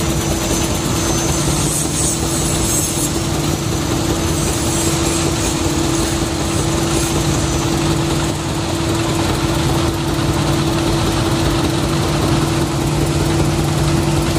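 Diesel engine of a ledok truck running close by at a steady idle, its pitch holding even throughout.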